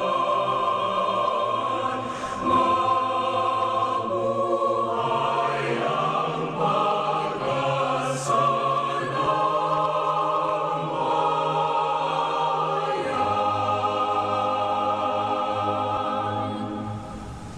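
Background music of slow, held choral voices over sustained chords, changing chord every few seconds, fading briefly and then cutting off abruptly at the end.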